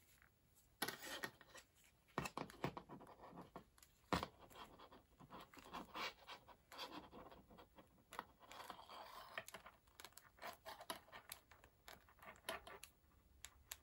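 Faint scraping, rustling and scattered clicks as cut vinyl wallet pieces are handled and stacked on a table, with one sharper click about four seconds in.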